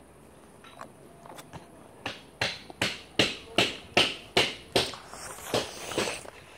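Footsteps, about ten quick, even steps at two to three a second, starting about two seconds in.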